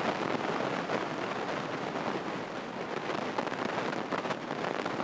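Cockpit noise of a single-engine Grumman light plane's piston engine at full throttle for takeoff: a steady, even drone with no clear tones.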